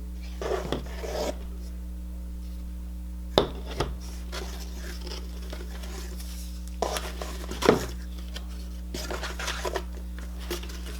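Short, scattered rustles and light knocks of a mailed package's contents being handled and unpacked by hand, over a steady low hum.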